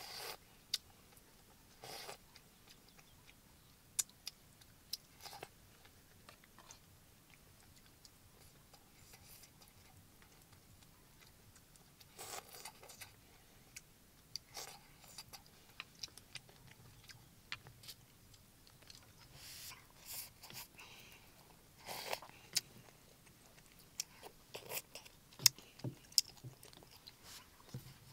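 Someone eating with a spoon: chewing and a spoon clicking against a bowl, in short, irregular sounds separated by gaps.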